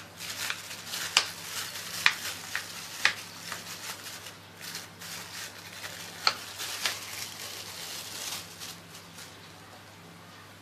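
Thin plastic bag crinkling and crackling in irregular bursts as hands handle it while shaping a raw minced-chicken patty, over a low steady hum. The crinkling dies away about nine seconds in.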